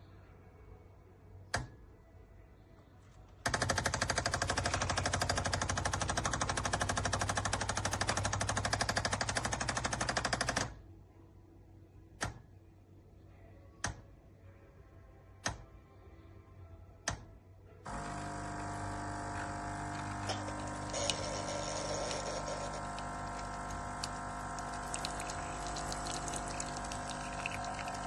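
Tassimo pod coffee machine brewing: its pump buzzes in rapid, even pulses for about seven seconds and stops, a few sharp clicks follow about every second and a half, then it runs again more steadily, with several held tones, for the last third.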